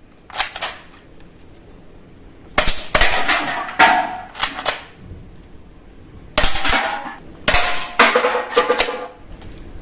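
Toy gun firing in a string of sharp shots, about a dozen, in bursts with short pauses between them, some shots leaving a brief ringing tail.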